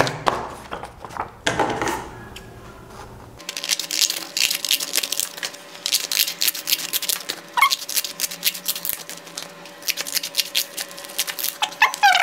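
Scissors cutting paper into slips for a lucky draw: a rapid, uneven run of short snips starting a few seconds in, with two brief high squeaks, one in the middle and one near the end.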